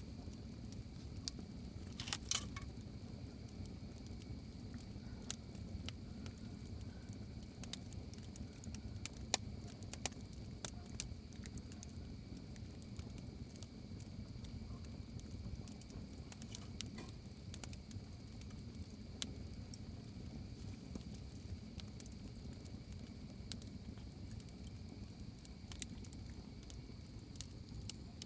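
Campfire burning, its wood crackling and popping at irregular intervals over a low steady rumble, with a brief cluster of louder pops about two seconds in.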